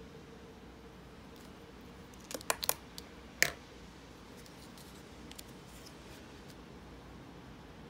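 A quick run of sharp clicks and taps, the loudest about three and a half seconds in, as the gel pen is set down and the folded origami paper is handled; a few faint paper ticks follow.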